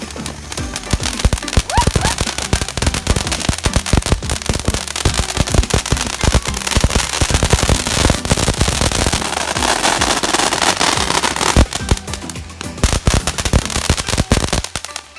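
Consumer fireworks going off: a thick, irregular string of firecracker cracks and pops, with a stretch of hissing crackle about ten seconds in.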